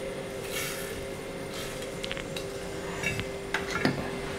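Wooden spatula stirring and scraping in an earthenware pot of hot coconut oil and dried red chillies, with a few light clicks and knocks in the second half, over a steady faint hum.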